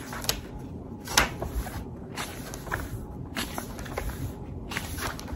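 Handling noise from a paper planner calendar being leafed through: soft rustling with a few sharp taps and clicks, the sharpest about a second in.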